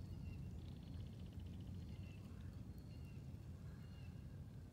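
Birds singing, with a rapid high trill about half a second in and thin whistled notes after it, over a steady low rumble like wind on the microphone.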